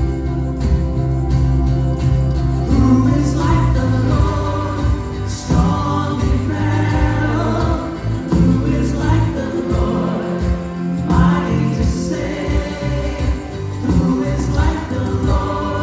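Gospel music with a choir singing over a strong bass line.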